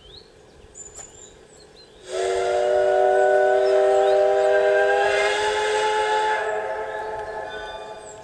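Sound system of a Bachmann K27 garden-railway model steam locomotive sounding its steam whistle through the onboard speaker: a chord of several steady tones with hiss. It starts abruptly about two seconds in, holds for about four seconds, then fades out.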